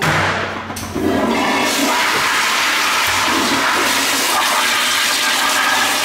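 Commercial toilet with a chrome flushometer valve flushing: a loud rush of water that starts suddenly, surges again about a second in and then runs steadily.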